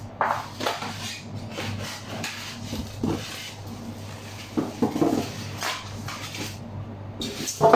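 Polystyrene foam packing pieces being pulled off a boxed kitchen appliance, scraping and knocking against it amid plastic wrap, in irregular handling strokes with a louder knock near the end.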